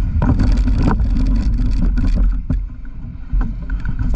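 Handling noise close to a camera: rumbling and a run of knocks and scrapes as a hand grips and unclips it from its mount, with wind buffeting the microphone.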